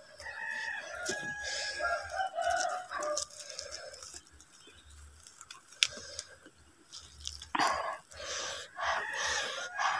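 A rooster crowing once, a long drawn-out call of about two and a half seconds, followed near the end by short rustling sounds.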